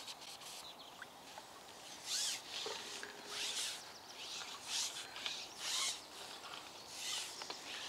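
A carbon fishing pole being shipped out, sliding through the angler's hands in about half a dozen short rasping rubs, roughly one a second.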